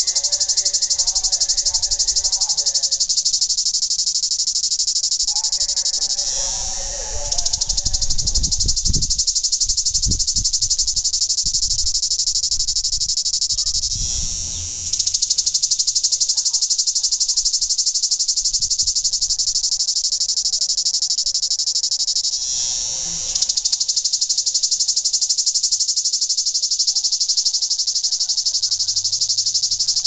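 Cicada singing: a loud, high, fast-pulsed buzz that runs on steadily and eases off briefly three times, about every eight seconds, before swelling again.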